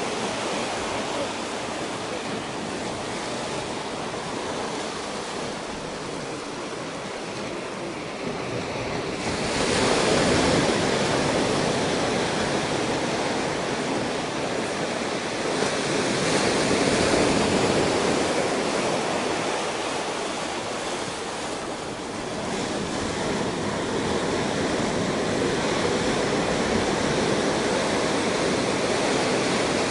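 Ocean surf washing in over a rocky beach: a steady rush of water that swells louder as waves break and wash up, about a third of the way in, again just past halfway, and through the last quarter.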